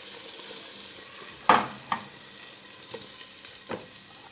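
Marinated prawns sizzling as they fry in oil in a pan. There is a sharp knock about a second and a half in, and a few lighter knocks after it, as the prawns are turned in the pan.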